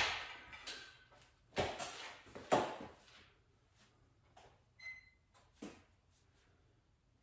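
Metal weight-stack plates of a lat pulldown machine clanking twice about a second apart, followed by a few faint clicks and a brief high chirp.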